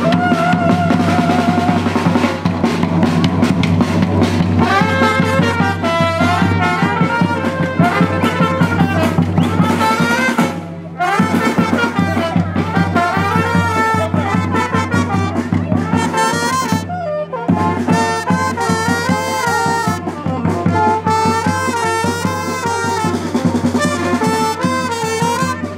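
Brass-band dance music: trumpets and trombones playing a lively melody over a steady drum beat and bass.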